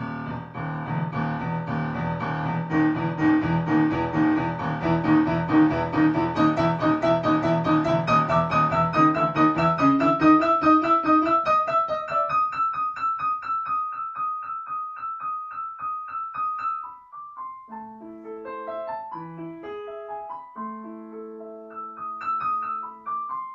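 Background piano music. It opens with a dense run of rapidly repeated notes, thins after about twelve seconds to one high note struck over and over, then turns to a slower melody with held notes.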